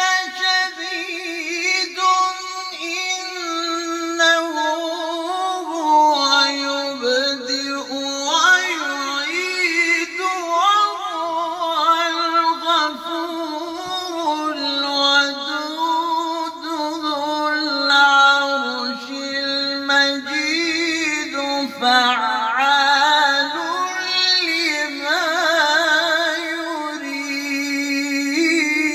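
A man's solo Quran recitation in the melodic, drawn-out mujawwad style, sung into a microphone as one long unbroken passage. His voice wavers through ornamented runs, climbing higher about a third of the way in and again in the last third.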